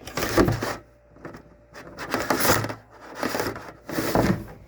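Scraping and rubbing as a stripped copper wire is fed through a hole drilled in the fuel tank, in about four short bursts.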